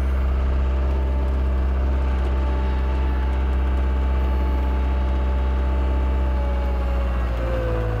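Caterpillar 236B skid steer's diesel engine running steadily with a deep hum, over a steady high whine that falls in pitch near the end as the machine slows.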